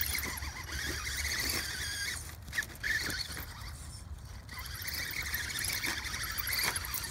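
Small electric RC rock crawler whining as it crawls over rocks: the high motor-and-gear whine rises and falls with the throttle.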